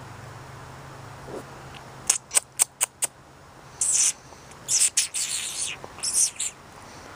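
A person calling a kitten: five quick tongue clicks, then a series of short "pss-pss" hissing bursts, close to the microphone.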